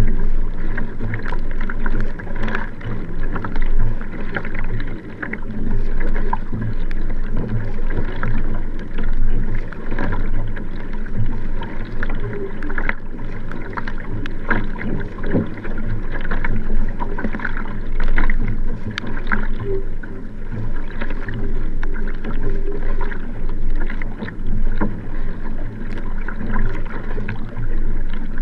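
Sprint kayak paddled hard at racing pace: double-bladed paddle strokes splashing into the water on alternating sides, with water rushing along the Nelo Vanquish hull.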